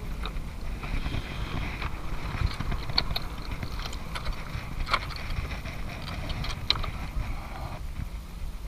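Wind rumbling on the camera microphone, with a few sharp clicks and knocks of boots stepping over loose rocks and stones, three of them standing out about 3, 5 and 7 seconds in.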